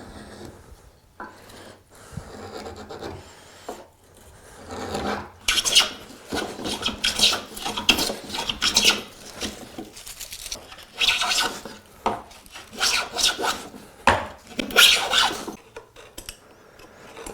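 A hand tool rasping across wood in repeated strokes, each about half a second to a second long, in two runs with a short pause between them.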